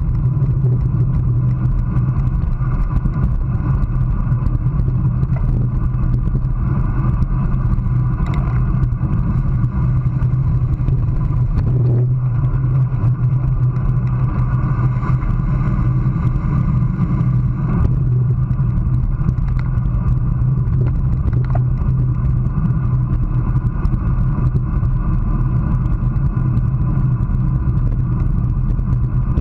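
Steady wind rush and road rumble picked up by an action camera mounted at the handlebars of a road bike riding at about 25 mph, with a few faint knocks.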